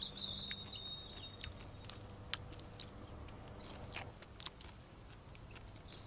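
Scattered small clicks and rustles of a hand picking wild strawberries among leaves and dry grass. A bird chirps a short trill near the start and again at the end.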